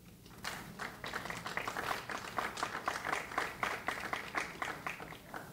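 A short round of audience applause, starting about half a second in and stopping just before the end, with individual claps standing out.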